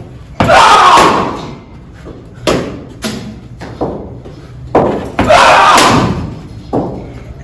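Cricket balls thudding in an indoor net: a series of short sharp knocks as the ball pitches on the artificial turf, meets the bat and hits the netting. There are two louder bursts of just under a second each, about half a second in and about five seconds in.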